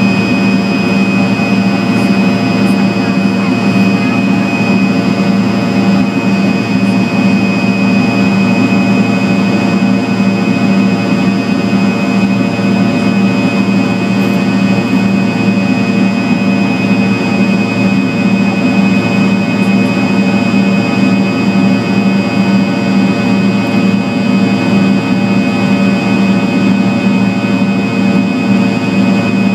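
Fokker 100's rear-mounted Rolls-Royce Tay turbofan in flight, heard from inside the cabin: a loud, steady drone with a strong low hum and a thin high whine.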